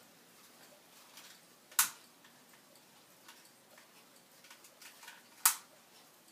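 Two sharp clicks about three and a half seconds apart, with a few faint small ticks between: a lighter being clicked to light more candles on a Christmas pyramid.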